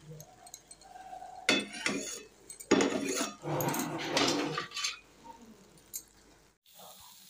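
Steel spatula stirring and scraping vermicelli upma in a metal kadai: a short spell of scraping, then a longer, louder one that ends about five seconds in.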